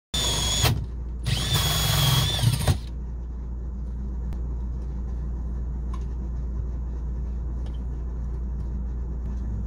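Electric power drill whining in two bursts, its pitch wavering as the speed changes, then stopping. A steady low hum follows.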